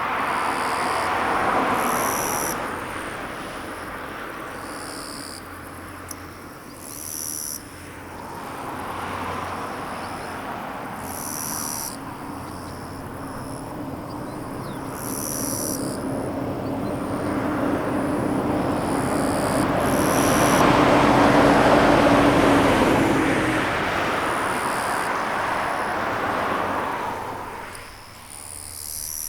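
Road vehicles passing one after another, their tyre and engine noise swelling and fading, the loudest pass about three-quarters of the way through, while crickets chirp in short repeated pulses.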